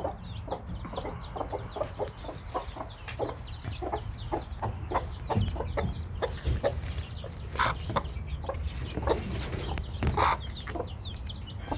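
Broody hens clucking in a steady run of short low clucks, with several newly hatched chicks peeping constantly over them. A couple of louder hen calls stand out in the second half.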